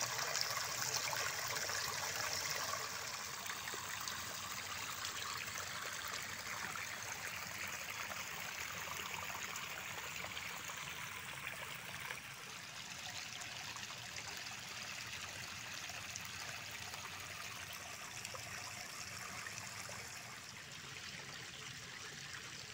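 Water spilling over a low stone ledge and running on in a steady trickling flow, louder in the first few seconds and gradually softer after.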